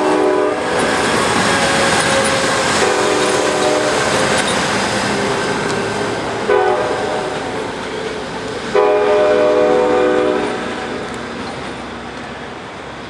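Amtrak passenger train horns sounding over the running noise of passenger cars on the rails: a blast at the start, another about three seconds in, a short toot about halfway and a longer blast about two-thirds of the way through, the last from an approaching GE P42 locomotive. The train noise fades toward the end.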